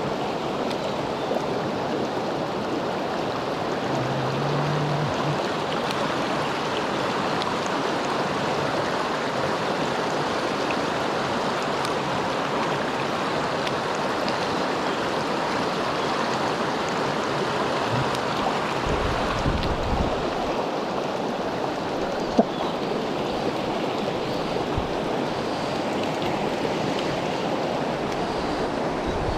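Mountain stream water rushing steadily over rocks, with one sharp click a little past twenty seconds in.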